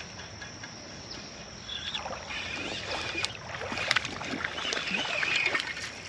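Water splashing and sloshing in a shallow creek. It starts about two seconds in and grows louder and busier towards the end.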